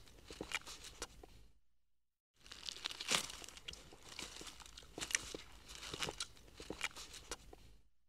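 Deer tearing and chewing grass stalks: irregular crunching and ripping, stopping for a moment about two seconds in, then going on.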